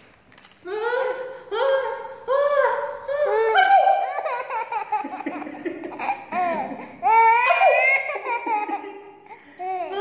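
A baby laughing in high, arching squeals. The squeals come in spaced bursts at first and run together after about four seconds, with a short pause near the end.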